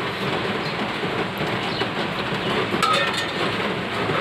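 A steady rushing background noise, with a steel spoon scraping and clinking against a stainless-steel mixing bowl about three seconds in.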